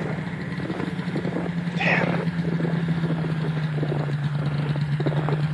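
Snowmobile engine idling steadily, its pitch settling slightly lower about a second in.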